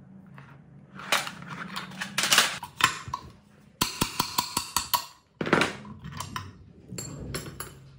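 Hand-work noises on an old electric water pump motor: scraping and rustling, then a quick run of sharp clicks as a thin metal tool pries the plastic cooling fan off the motor shaft.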